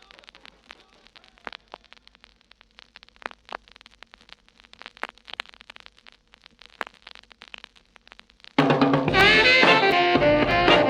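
Vinyl LP surface noise in the silent groove between tracks: scattered clicks and pops over faint crackle and a low hum. About eight and a half seconds in, the next song starts loudly.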